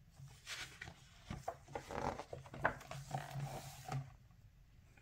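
A page of a picture book being turned by a gloved hand: soft paper rustling and sliding with a few light taps.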